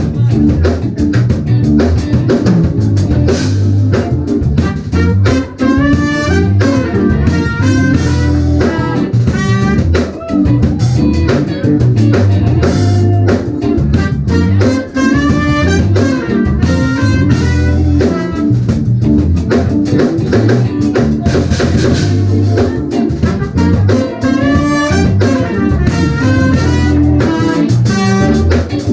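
Live jazz-fusion band playing: drum kit and electric bass under quick, winding melodic lines from guitar and keys.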